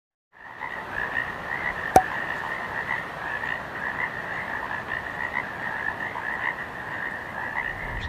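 A chorus of frogs calling, many short croaks overlapping without a break. One sharp click cuts in about two seconds in.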